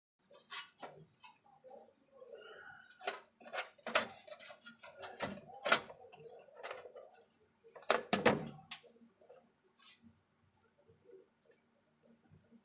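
Irregular clicks, knocks and light clinks of small tools and parts being handled on a workbench, loudest in a cluster about eight seconds in, over a faint steady hum.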